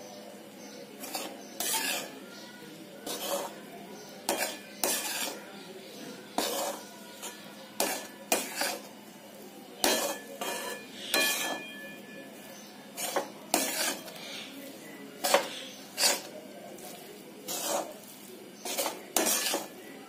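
Flat steel spatula scraping and knocking against a metal kadai while mixing coarse-ground gram flour with ghee in the unlit pan. The strokes are irregular scrapes and clanks, roughly one a second.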